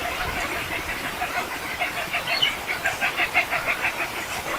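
Roosting birds calling, with a quick run of repeated notes, about five or six a second, through the middle, over a steady background of bird noise.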